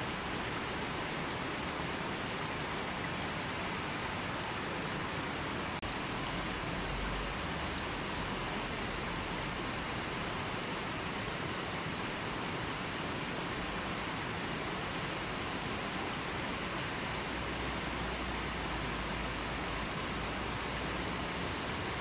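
River water rushing over and around boulders, a steady, unbroken rush.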